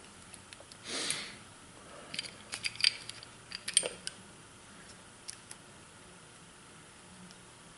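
Light metallic clicks and taps of Glock 30 pistol parts being handled as the recoil spring assembly is fitted into the slide. There is a soft rustle about a second in, then a quick run of sharp clicks, and a couple of faint ticks after.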